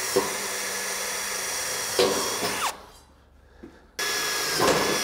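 DeWalt cordless drill pre-drilling holes through metal gable trim: it runs steadily with a high motor whine, stops a little past halfway, and starts again about a second later.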